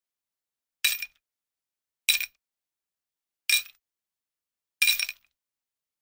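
Four short, bright metallic clinks, about one every second and a quarter, each ringing briefly and dying away quickly, with silence between.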